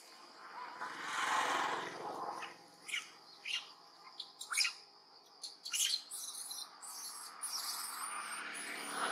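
Birds chirping: several short, sharp chirps, then high thin whistled calls near the end, with a swell of rushing noise about a second in.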